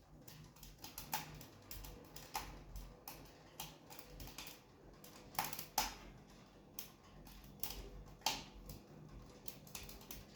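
Wood fire crackling in a fireplace: irregular sharp pops and snaps, a few of them louder, over a faint steady hum.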